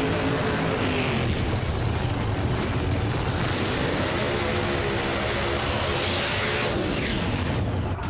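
Drag race car's engine revving hard, its pitch falling and rising again several times as the throttle is worked, with a loud hiss over it.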